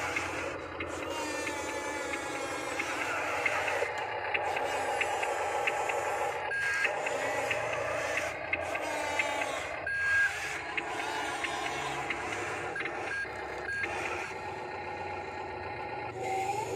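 Huina remote-control toy wheel loader driving and working its bucket, with a few short electronic beeps as it backs up.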